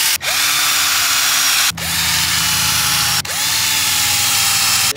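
Cordless drill with a step bit cutting through a square steel tube. The motor runs steadily, and three times the trigger is briefly let off and squeezed again, the whine rising back up in pitch each time, before it stops near the end.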